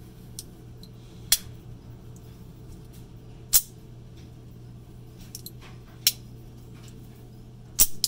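AKC 6-inch lever-lock automatic switchblade being fired and worked: four loud, sharp metallic snaps about two seconds apart as the blade springs and locks, the last one doubled, with a few faint clicks of the lever and blade between.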